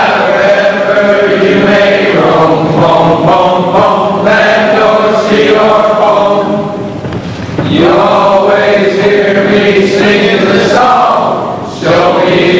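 A group of voices singing together in slow, long-held phrases, with two short breaks between phrases, one near the middle and one near the end.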